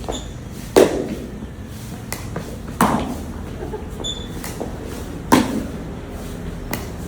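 Three sharp knocks about two to two and a half seconds apart, each with a short ringing tail. A faint high ping comes just before the first and another between the second and third.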